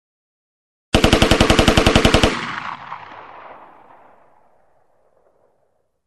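AK-47 rifle sound effect: one burst of full-automatic fire, about fourteen shots in under a second and a half, starting about a second in, followed by an echoing tail that fades away over about two and a half seconds.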